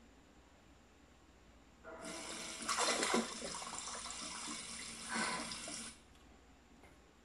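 Water running from a tap, a steady rushing hiss heard through a TV's speaker from a cartoon's soundtrack, starting about two seconds in and cutting off about six seconds in, with near silence on either side as the channel changes.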